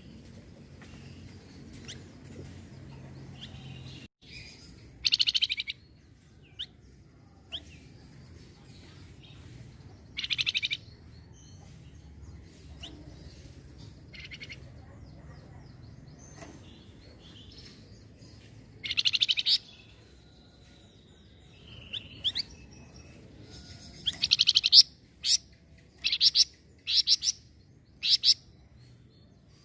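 Harsh, buzzy chattering calls of a flamboyan songbird: short rasping bursts about a second long, spaced several seconds apart, then a quick run of five or six bursts near the end.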